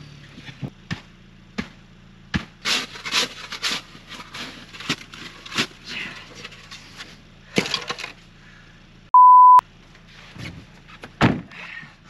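Snow being dug out from under a stuck Ford Bronco with a plastic shovel: a run of short scrapes and knocks. About nine seconds in, a steady beep tone about half a second long, and one loud thump near the end.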